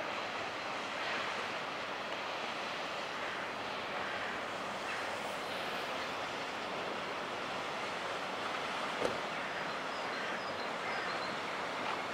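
Steady rushing noise of an inland motor cargo ship passing close by on the canal, with a single sharp tick about nine seconds in.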